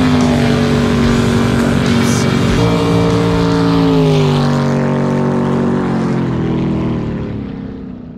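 Jet boat engines run flat out as two boats pass one after the other, each engine note dropping in pitch as it goes by. The sound fades out near the end.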